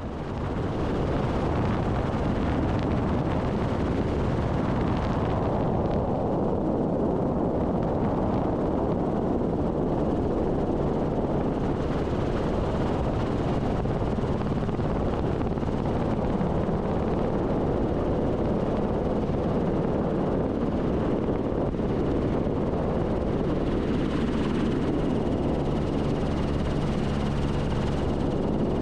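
Rescue helicopter running steadily: a continuous rushing noise with a faint high whine.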